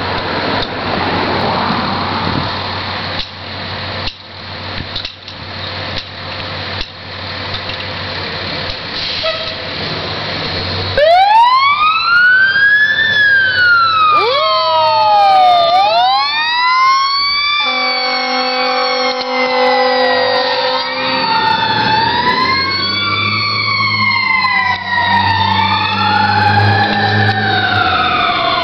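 Fire engine leaving on an emergency call. A heavy engine runs for the first several seconds, then about eleven seconds in the siren starts, wailing slowly up and down. A steady multi-tone horn blast comes a few seconds later, and overlapping siren wails continue as the truck pulls away.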